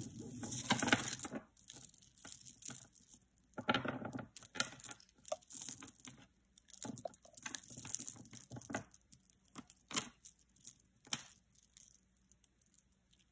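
Tangled beaded necklaces and metal chains clicking and rattling against each other as a necklace is worked loose from the pile, in uneven spells of rustling and clicking with a sharp click about ten seconds in.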